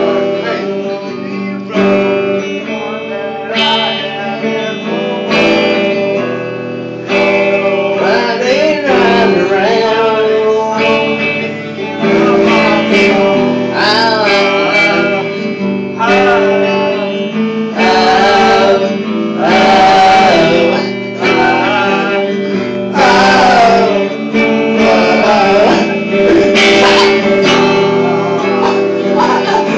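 Guitar strummed and played steadily, with a man singing loosely over the chords.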